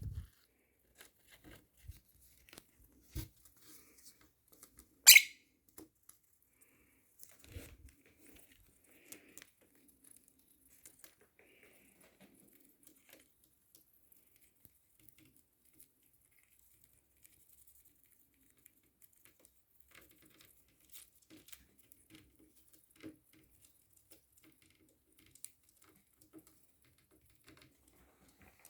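Lovebird gnawing and shredding nesting material with its beak: scattered small tearing, crinkling and tapping sounds, with one loud, sharp sound about five seconds in.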